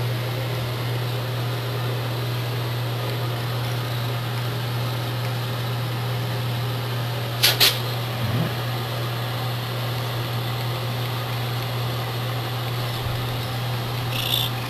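Domestic cat purring steadily and continuously while being stroked, heard close up as a low, even hum. A quick double click cuts through about halfway.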